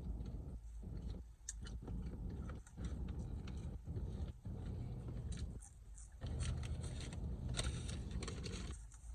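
Close-miked eating: a hash brown being chewed, with low mouth rumbles that stop and start every second or so and scattered crackles.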